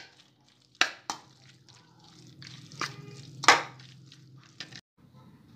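A spoon mixing raw chicken pieces with a wet garlic and green chilli paste in a stainless steel bowl: soft wet squishing with a few sharp clinks of the spoon against the bowl, the loudest about three and a half seconds in.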